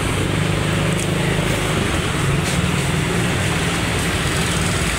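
Steady low engine hum with road traffic noise.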